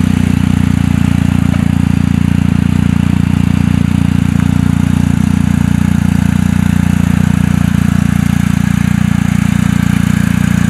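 BMW GS Adventure motorcycle's boxer-twin engine idling at a steady low pitch.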